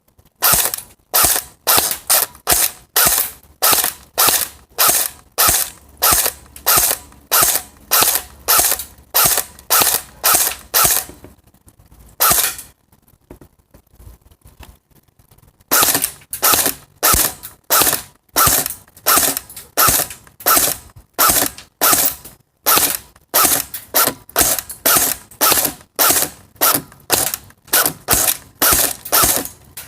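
Airsoft rifle fired over and over in quick succession, about two to three sharp shots a second, with a pause of about three seconds in the middle.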